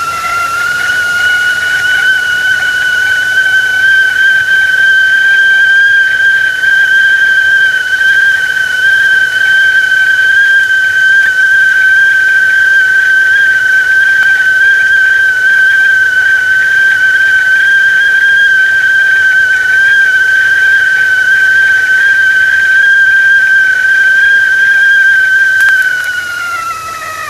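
Stovetop kettle whistling at the boil: one loud, steady high whistle with a faint overtone, rising slightly in pitch at first and dropping in pitch and fading near the end as the steam eases.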